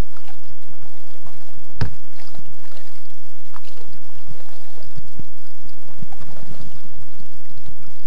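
Paddling a sit-on-top kayak: the paddle dipping and splashing in the water, with a sharp knock about two seconds in.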